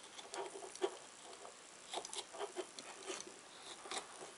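Craft knife cutting through dried, glue-varnished tissue paper around the rim of a glass jar: short, irregular crackly scratches and ticks as the jar is turned.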